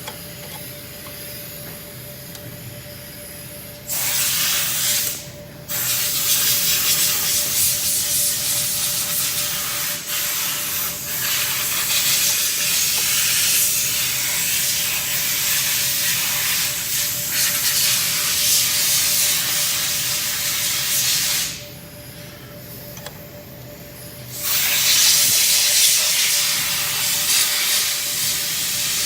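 Compressed air hissing from an air-blow gun in three long blasts, the longest about fifteen seconds, with short pauses between, over a faint steady hum.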